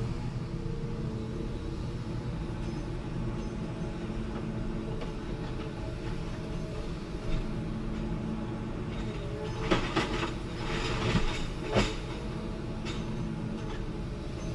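Diesel forestry machine engine running steadily under a constant drone. A few sharp knocks and a short clatter come about ten seconds in.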